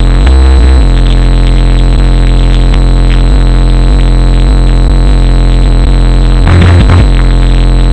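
Bass-heavy music played at very high volume through a 15-inch DB Drive Okur K9 subwoofer in a ported box, the recording overloaded and distorted throughout. Two short, louder low blasts with crackle come about a third of a second in and near the end.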